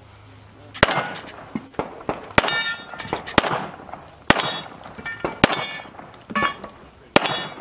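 Six 9mm pistol shots, spaced unevenly about a second or so apart, several of them followed by the ringing clang of hit steel targets.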